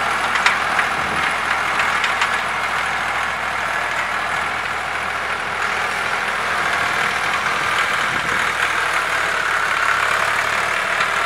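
Diesel tractor engine running steadily under load in first gear while pulling a tine cultivator through the soil.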